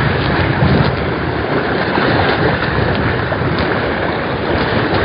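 Steady wind noise buffeting the microphone over the wash of the sea against the rocks.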